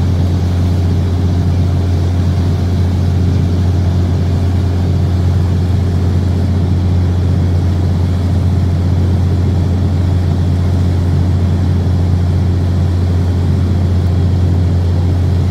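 Boat engine running steadily while underway, a constant low drone with no change in speed.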